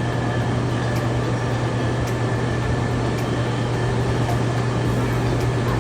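A steady low motor drone with an even rushing noise, holding constant throughout.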